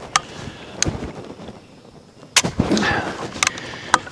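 A muzzle-loading flintlock rifle fires about two and a half seconds in: a sharp crack that dies away over about a second. A few fainter clicks come before and after.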